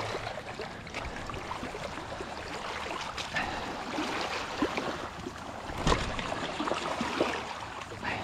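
Small waves washing and trickling over a shallow sandy, rocky shoreline, with scattered clicks and knocks of close handling; the sharpest knock comes about six seconds in.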